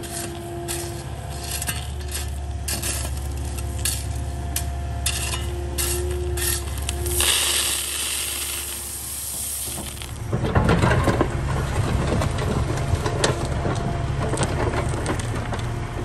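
Wheeled excavator running with a steady engine hum and a faint hydraulic whine, over a run of sharp clinks of stones and tools. Sand and gravel then pour from its bucket into the trench with a hiss, and from about ten seconds in the engine and the dumped dirt grow louder and rougher.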